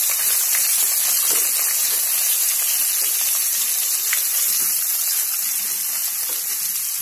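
Sliced onions sizzling steadily in hot oil in a metal pan as they fry towards golden brown, stirred with a metal spatula that gives a faint scrape or tap now and then.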